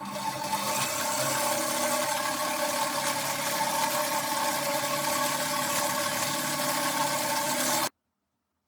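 A jigsaw mounted under a jigsaw table running steadily at speed, driving its reciprocating stroke with a steady whine; it stops abruptly near the end.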